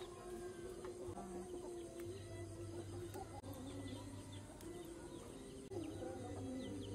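Chickens clucking, with small birds chirping over a low hum.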